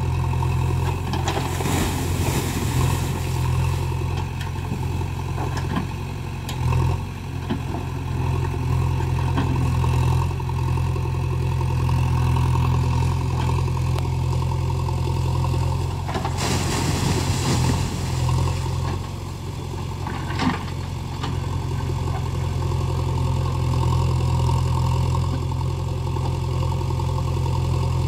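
JCB backhoe loader's diesel engine running steadily as its hydraulic arm digs and swings, with a few brief louder rushes of noise.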